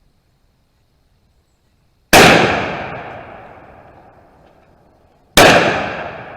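Two shots from a Browning A5 Sweet 16, a 16-gauge semi-automatic shotgun, fired about two seconds in and again about three seconds later, each loud and echoing away over a couple of seconds.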